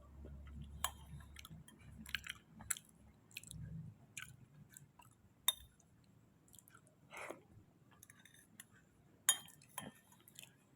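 Close-miked chewing and wet mouth smacks while eating kolak ubi, soft pieces of sweet potato in syrup. Irregular clicks throughout, with sharp ones about five and nine seconds in.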